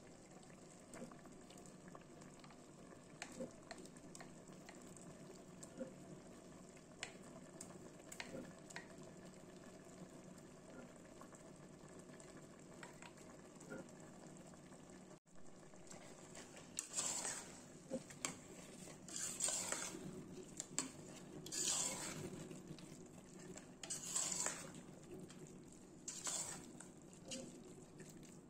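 Chickpea curry simmering in a stainless steel pot with faint bubbling pops. From about halfway, a metal spoon scrapes and stirs around the pot in repeated strokes, roughly one a second.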